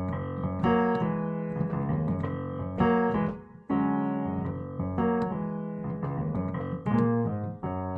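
Solo piano chords played on a keyboard, the opening of a slow song before the vocal comes in. The chords are held and change every second or so, with a brief drop just after three seconds in.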